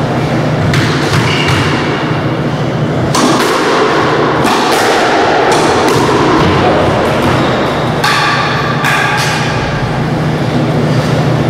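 Squash ball hits: several sharp thuds a second or more apart, with shoe squeaks on the court floor, over a steady low hum.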